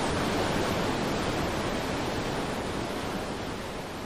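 Muddy Yellow River floodwater rushing through a narrow rock channel: a steady noise of fast-flowing water with no separate splashes.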